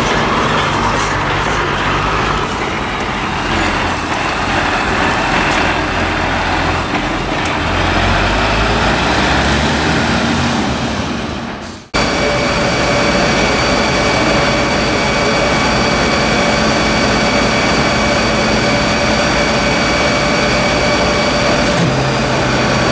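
Fire engine diesel engines running close by, their low note stepping up and down. About halfway through, the sound cuts to a steady, unchanging engine whine.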